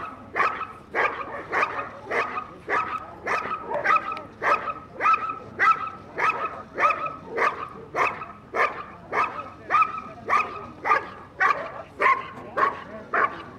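Belgian Malinois barking steadily and rhythmically, about two sharp barks a second, as it sits in front of a trial helper in a bite sleeve and guards him during an IPO 3 protection routine.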